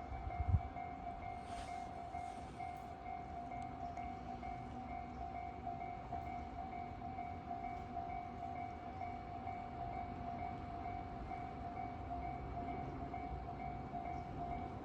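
Japanese level-crossing warning bell ringing steadily and without pause, over the low rumble of a train on the line. A brief thump comes about half a second in.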